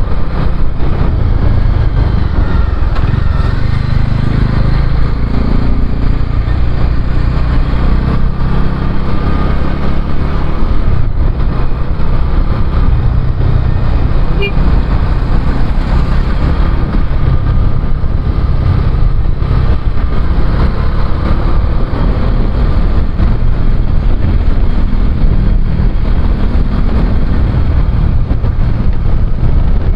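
Motorcycle being ridden on the road: a loud, steady run of engine and road noise.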